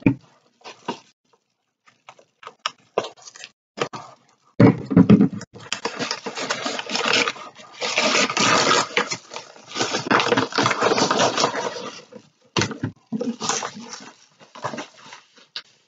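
Pink floral gift-wrapping paper crinkling and tearing as a package is pulled open by hand: short crackles at first, then a long stretch of dense rustling and ripping in the middle, then more short crackles.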